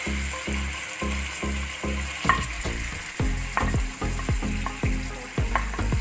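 Raw chicken cubes sizzling as they slide into hot garlic oil in a frying pan. Background music with a steady bass beat plays over it.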